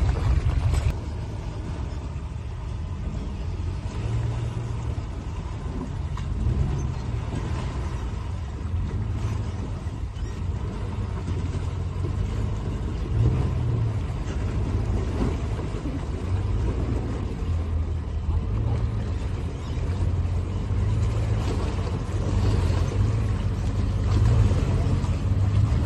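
Pickup truck engine running at low revs as the truck wades slowly through a shallow river, a steady low rumble that swells and eases a little.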